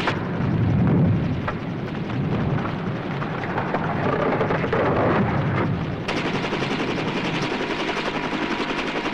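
Helicopter rotor sound effect: a rapid, chattering beat. It gives way at the start to a muffled, deeper rumbling as the cable strains to drag the toppled tracked vehicle upright. The rotor chatter returns about six seconds in.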